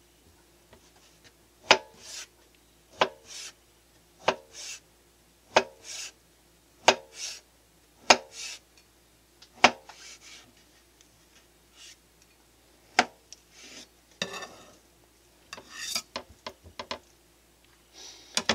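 Kitchen knife slicing an avocado on a plastic cutting board: about eight sharp taps of the blade on the board, roughly one every second and a bit with a longer pause before the last, each followed by a short scrape. Softer scrapes and taps near the end.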